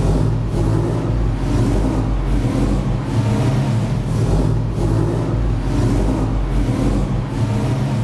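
Freshly rebuilt vintage Mercedes race car engine running steadily, started on the button before it goes into the car.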